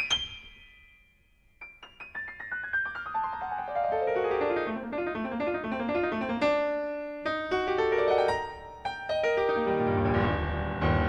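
Background piano music: quick runs of notes that die away briefly about a second in, then resume and grow fuller with bass near the end.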